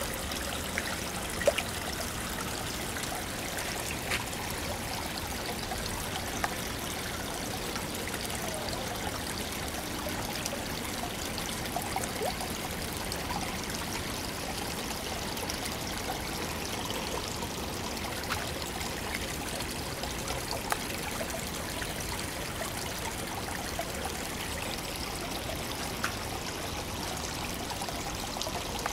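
Water steadily trickling and splashing into a koi pond, with a few brief sharper splashes.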